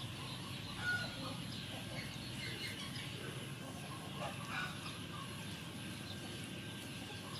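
Chickens and other birds calling in the background: scattered short chirps and clucks over steady low background noise.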